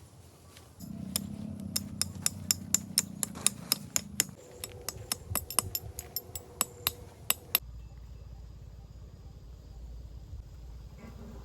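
A quick run of sharp knocks or taps, about two to three a second, that stops suddenly about seven and a half seconds in, followed by a steady low rumble.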